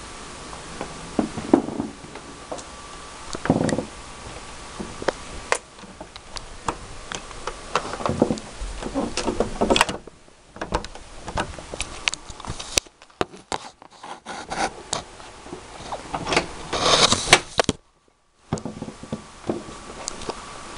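Scattered clicks, light knocks and rustling of things being handled quietly, with a faint steady tone underneath. The sound cuts out briefly twice.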